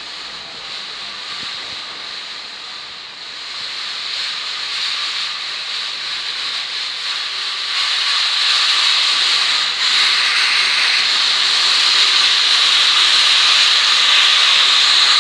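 Train noise: a steady rushing hiss with a faint steady tone underneath, growing louder over the second half.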